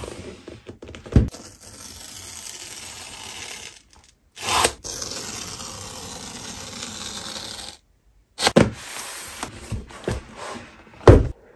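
Paper pull-tab seal strips being torn off a cardboard laptop box, heard as two long steady rips. Several sharp knocks of the box being handled come between and after them, the loudest near the start and near the end.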